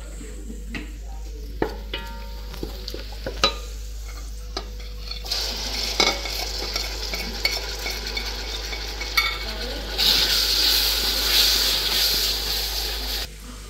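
Chopped onions sizzling in oil in a large aluminium pot as tomatoes and red chilli powder are scraped in from a plate and stirred with a wooden spoon, with scattered knocks of spoon and plate on the metal. The sizzle swells about five seconds in and grows louder again about ten seconds in, then cuts off just before the end.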